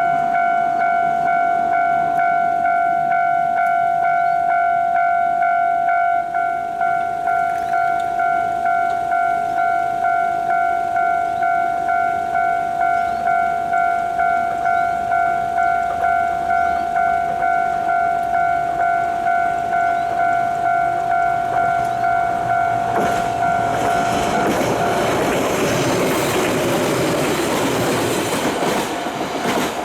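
Japanese level-crossing warning bell ringing steadily, its electronic clang repeating about twice a second. Near the end a single-car diesel train runs over the crossing with a rising rumble and clatter of wheels on rail joints, drowning out the bell.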